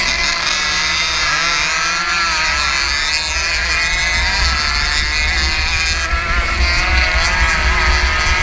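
Racing 115cc motorcycle engine running hard, its pitch rising and falling as the throttle opens and closes through the corners. A heavy low rumble of wind buffets the microphone underneath.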